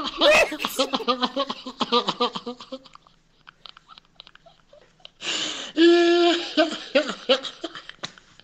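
Men laughing hard: a fast run of laughs that fades after about three seconds, then after a short lull a loud breath in and a long pitched laugh about six seconds in, followed by a few more short laughs.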